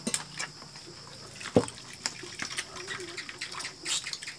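Water poured from a metal kettle, with scattered clicks of dishes during a meal eaten by hand.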